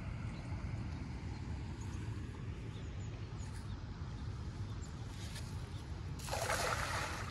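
Steady low rumble of a flowing stream and wind, then about six seconds in a short, rushing splash as a thrown cast net lands spread out on the river's surface.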